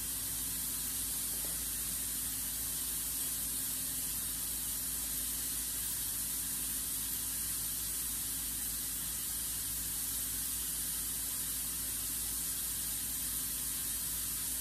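A steady, even hiss with a faint low hum beneath it, unchanging throughout.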